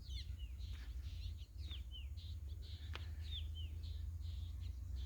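Small birds chirping: many short, quick calls that swoop in pitch, several a second, over a steady low rumble.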